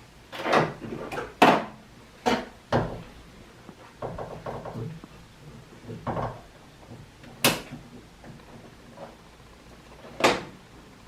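Irregular clunks and clatters of equipment being handled, about seven sharper knocks spread unevenly, the loudest about a second and a half in.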